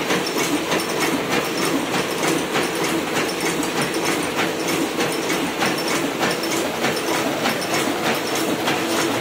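Hamada 700 sheet-fed offset printing press running, a steady rhythmic mechanical clatter of several clacks a second from its cylinders and sheet feed.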